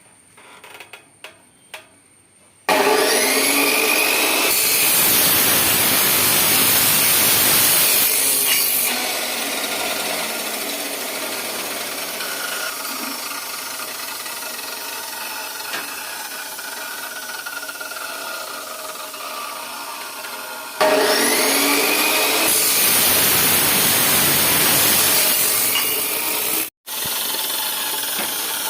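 14-inch metal-cutting chop saw starting with a rising whine and cutting through metal pipe, loudest while the blade is in the cut and then running lower and steady. It starts up and cuts a second time about twenty-one seconds in, after a few small clicks near the start.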